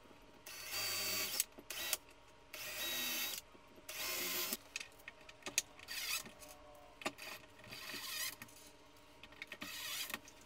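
Cordless DeWalt drill driving screws through a 3D-printed plastic mount into a wooden desktop: the motor runs in repeated short bursts, the first three lasting under a second each, then shorter spurts, with small clicks between.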